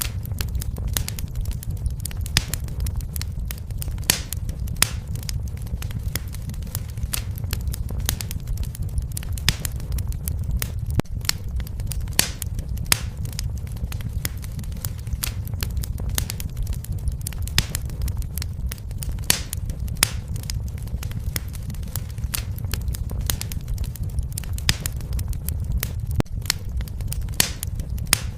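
Wood fire crackling, with many irregular sharp pops and snaps over a steady low rumble of the flames.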